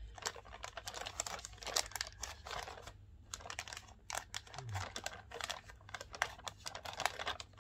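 White plastic mailer bag crinkling and rustling as it is held and cut open with scissors, with quick, irregular snips and crackles.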